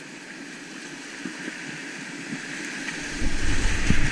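Rushing whitewater of a creek rapid heard from a kayak, slowly growing louder. About three seconds in, a deep rumble and the splashing of paddle strokes in the whitewater come in, and the sound gets much louder.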